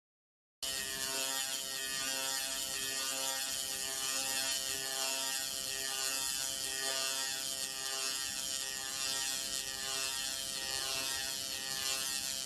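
Pulsed laser cleaning head ablating a metal surface: a steady, dense crackling buzz with a high hiss, starting abruptly about half a second in.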